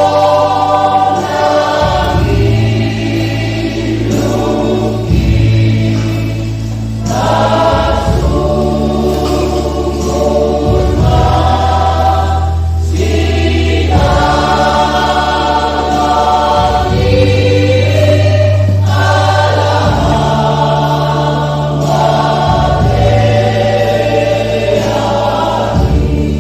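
Church choir singing in several parts, in Batak, over steady sustained low notes that change every few seconds.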